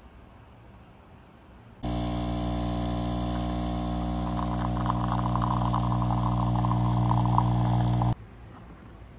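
Espresso machine's pump buzzing steadily while a shot pours, switching on about two seconds in and cutting off suddenly some six seconds later, with a crackling over the hum in the middle of the pour.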